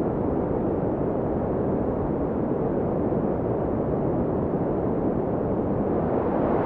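Sea surf: a steady, deep rush of waves with no distinct breaks.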